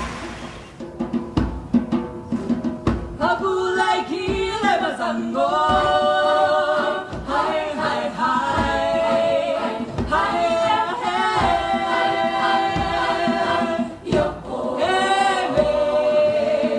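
A cappella choir singing in close harmony, with held chords and sliding pitches. It opens with a few sharp percussive hits before the voices come in.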